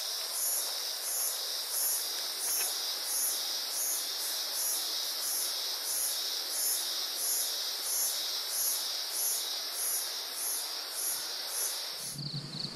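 Insects chirping at dusk: a high-pitched call pulsing evenly about twice a second over a steady hiss. Near the end the pulsing stops and gives way to a steady high insect trill with a low hum.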